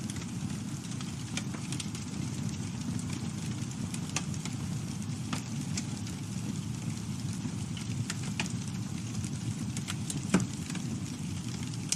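Campfire burning: a steady low rumble of the flames with scattered wood crackles and pops, and one louder pop near the end.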